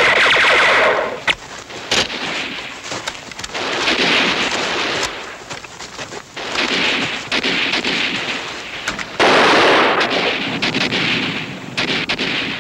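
Battle gunfire: dense bursts of automatic fire broken by scattered single shots, the heaviest stretches at the start and again about four, seven and nine seconds in.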